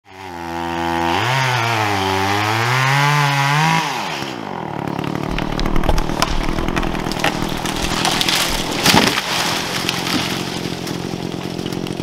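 Gas chainsaw revving, its pitch rising, dipping and rising again for about four seconds, then dropping back to a steady lower run. Sharp cracks and snaps sound over it, the loudest about nine seconds in.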